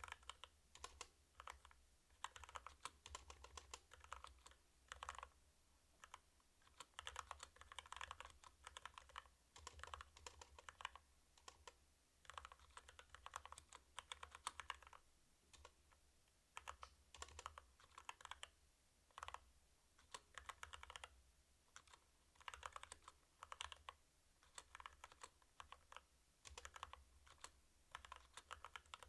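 Typing on a CU65 mechanical keyboard with stock Kailh Box Red linear switches: quick runs of keystrokes broken by short pauses every second or two.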